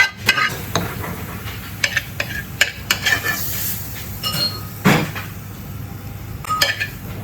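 Food being stir-fried in a pan in a restaurant kitchen: a metal utensil clatters and scrapes irregularly against the pan over a steady sizzle, with a few brief metallic rings.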